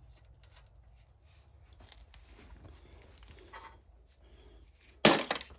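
Faint handling of tools and hydraulic fittings at a mini excavator's pump, with small clicks and rustles, then a short, loud clatter about five seconds in.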